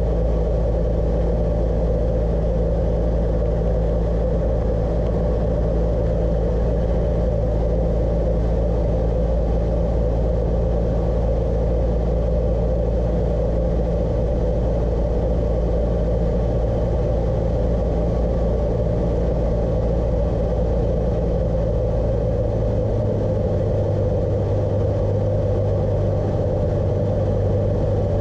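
Cessna 172's piston engine and propeller droning steadily, heard inside the cabin; about 23 seconds in, the drone's pitch changes.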